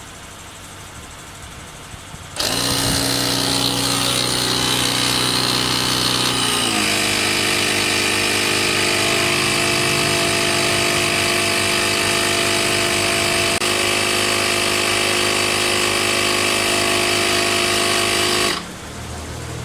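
Portable air compressor pump switching on about two seconds in and running loud and steady with a mechanical hum, settling to a slightly lower pitch a few seconds later, then cutting off suddenly near the end.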